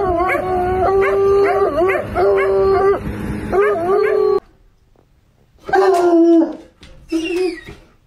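Bloodhound baying: about six short, held howling notes one after another, each starting with an upward swoop. After a pause of about a second, two more come, the second a little higher.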